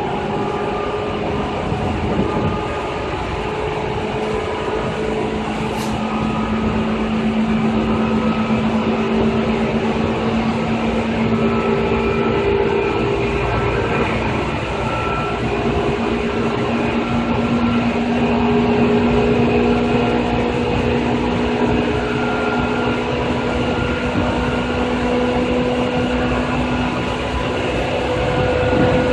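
2000 series electric train running, a steady rumble of wheels on rail with drawn-out motor and gear tones that hold steady and creep slightly higher in pitch.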